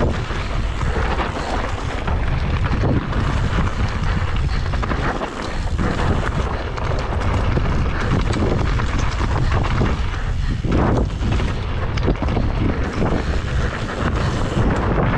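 Loud wind buffeting the microphone of a camera riding a mountain bike downhill at speed, over a steady low rumble with irregular rattles and knocks as the tyres run over a rocky trail.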